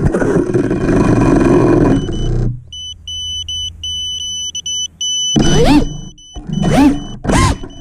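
5-inch FPV quadcopter crashing into grass, with loud churning as it tumbles with its props still turning. The motors then stop and a high-pitched buzzer beeps on and off. About five seconds in, the brushless motors rev up and down in three short bursts, a whine rising and falling each time, as the downed quad is throttled to get back up.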